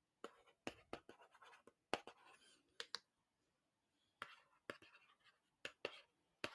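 Handwriting close to the microphone: scratchy writing strokes with sharp taps, pausing for about a second midway.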